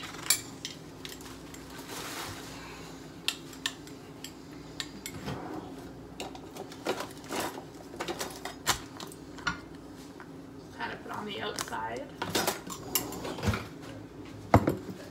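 Kitchen clatter: a spoon clinking and scraping in a glass salsa jar, with scattered sharp taps and clicks of utensils.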